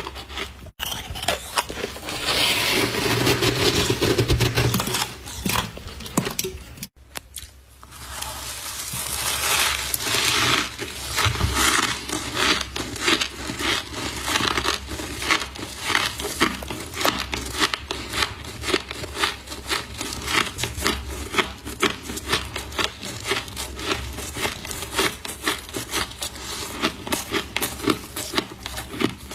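Frost being crunched and chewed close to the microphone: a long run of crisp, rapid crackles, with a louder scraping stretch early on.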